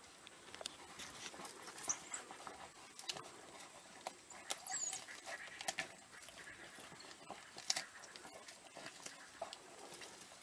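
African wild dogs feeding on a fresh impala carcass: faint tearing and chewing with many short wet clicks and crunches, and a few brief high squeaks.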